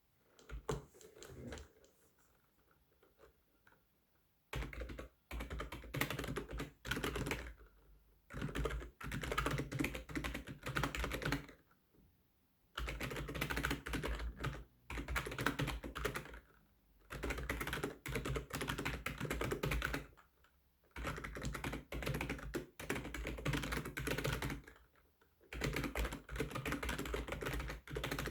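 Fast typing on a computer keyboard, the keys clattering in dense runs of a few seconds each with short breaks between them. The first four seconds hold only a few scattered taps, and there is a longer break about twelve seconds in.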